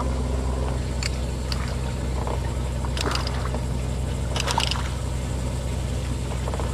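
Water splashing a few times as a hooked redfish is brought alongside the boat and netted, over a steady low hum.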